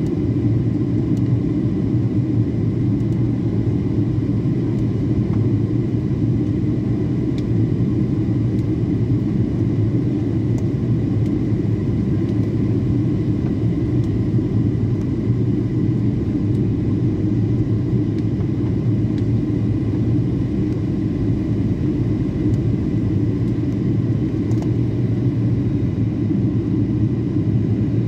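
Steady low cabin noise inside a Boeing 737-800 in flight on descent, from its CFM56 engines and the airflow, with a faint steady high tone above it.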